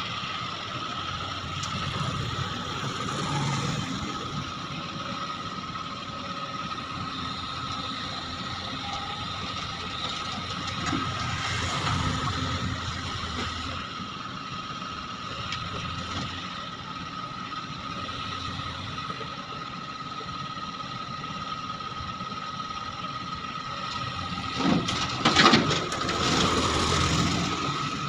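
Backhoe loader running, with a steady whine and continuous mechanical rattling, and a few loud clanks near the end.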